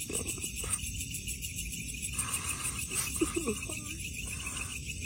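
Steady pulsing chirping of night insects such as crickets, with a few brief faint voice sounds in between.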